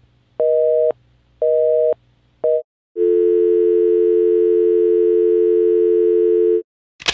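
Telephone busy signal: a two-tone beep, half a second on and half a second off, repeated about three times before it is cut short. After a short gap comes a steady, slightly lower dial tone for about three and a half seconds, which then stops.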